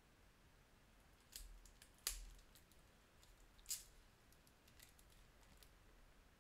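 Craft knife slitting the plastic shrink wrap on a deck of cards: a few faint crackles and sharp clicks, the loudest about two seconds in, against near silence.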